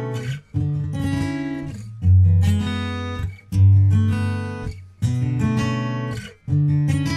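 Background music: acoustic guitar strumming chords, each chord struck and left to ring, a new one about every second and a half.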